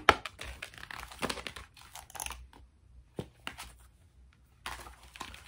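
Rustling and crinkling of an album's paper and plastic packaging as it is opened and its contents handled, with a few light clicks. It goes quiet for about two seconds in the middle, then the rustling starts again near the end.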